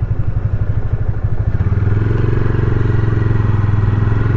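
Single-cylinder 250 cc motorcycle engine running while riding, a fast even pulsing that gets a little fuller and louder about halfway through.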